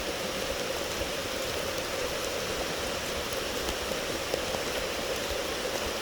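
Steady rain falling, with scattered faint drop ticks.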